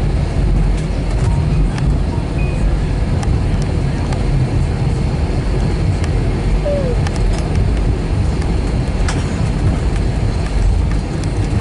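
Airbus A320 cabin noise during the rollout and runway exit after touchdown: a steady low rumble of the engines and the wheels on the pavement, with a few small clicks.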